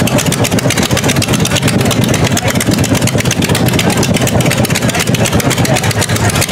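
Rat rod's engine running hard through open headers during a burnout: a loud, rapid, uneven exhaust pulse that holds steady.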